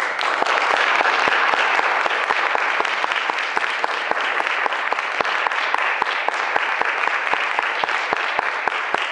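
Audience applauding, breaking out suddenly and going on steadily as a dense patter of many hands clapping.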